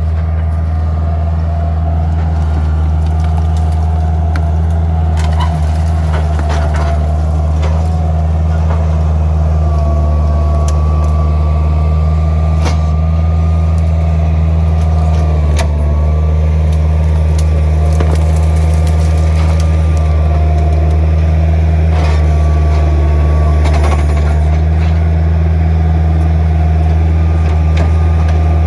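Skid steer engine running steadily at a constant speed, with a thin whine riding over the low engine note and scattered light clicks and knocks.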